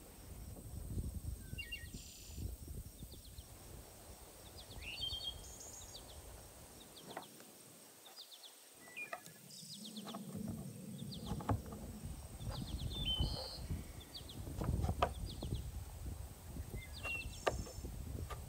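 Knife cutting through firm watermelon rind on a wooden board, a run of short crisp chops and knocks, with birds chirping now and then.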